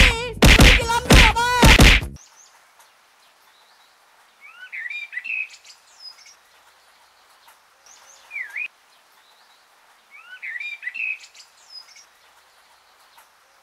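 About two seconds of loud wavering wailing mixed with sharp strikes. Then birds chirping in four short bursts a few seconds apart over faint background hiss.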